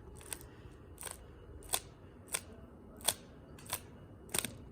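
A 3x3 Rubik's cube being turned: layer after layer snaps round with a short plastic click about every two-thirds of a second, seven turns in all, as a last-layer algorithm is run.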